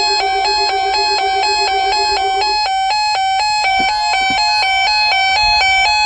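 Electronic alert chime between weather alert messages: two high notes alternate rapidly, about four times a second, over a lower pulsing tone that stops about two and a half seconds in.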